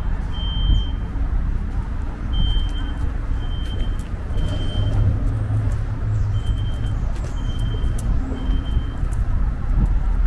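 Steady low rumble of distant road traffic. Over it, faint short high electronic beeps of a single pitch come in short runs with pauses between.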